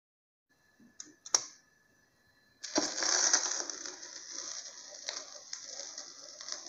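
Record player handled with two sharp clicks. Then, about two and a half seconds in, the stylus drops onto a 45 rpm vinyl single and the lead-in groove plays with steady hiss and surface crackle, before any music starts.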